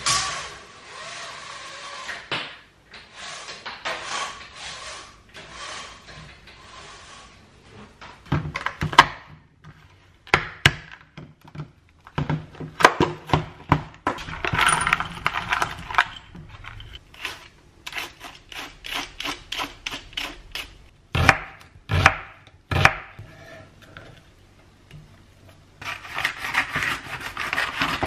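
Kitchen food-preparation handling: a long run of sharp clicks and knocks on the counter and chopping board, ending with a foil-lined fish bag crinkling as it is pulled open.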